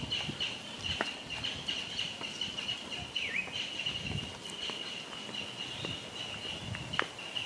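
Insects droning steadily at a high pitch with a rapid pulse, a short falling bird chirp about three seconds in, and two sharp clicks, one about a second in and one near the end.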